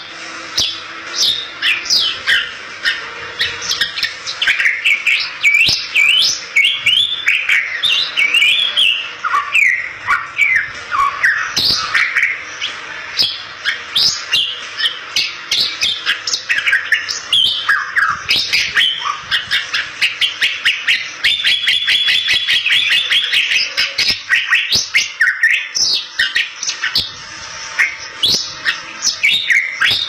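Bali myna in full song: a rapid, varied run of whistled notes and chatter with many sharp clicks, and one longer buzzy trill about two-thirds of the way through.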